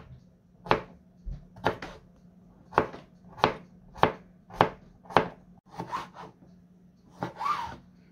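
Kitchen knife chopping cucumber into chunks on a plastic cutting board: a row of sharp knocks as the blade hits the board, about one every half-second to second, with a longer scraping sound near the end.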